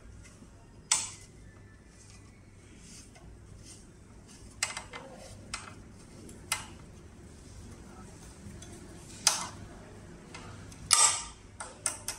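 Sharp metallic clicks and clinks, about eight of them scattered over several seconds and loudest near the end, as a T-handle driver turns and seats in the screws of an electric scooter's kickstand bracket, loosening them.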